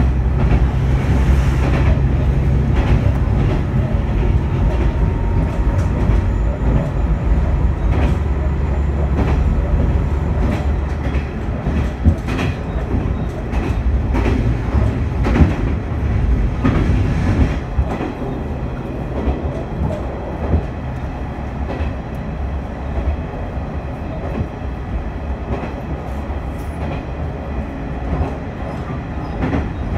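Diesel railcar running along the track, heard from inside: a steady low rumble of engine and wheels, with occasional sharp clacks as the wheels cross rail joints. The rumble lessens after about ten seconds.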